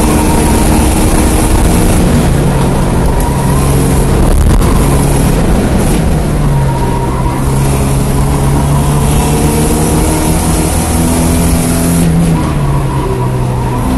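Porsche 924S's 2.5-litre four-cylinder engine running hard under race load. There is a brief break about four and a half seconds in, then the pitch climbs steadily and drops sharply near the end.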